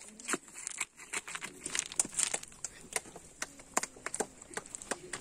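Gravel and small stones crunching and clicking, an irregular run of sharp clicks several times a second, with faint voices behind.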